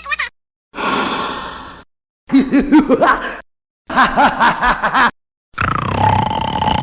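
A string of separate short human vocal sound effects with silent gaps between them. First comes a breathy sound, then two bursts of short, choppy grunting or chuckling noises, then a longer held vocal sound near the end.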